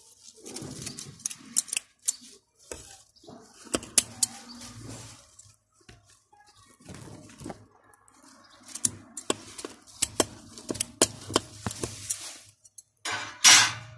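Scissors snipping mint stems: a run of short, sharp clicks at irregular intervals over leaves rustling and brushing close by, with a louder rustle near the end.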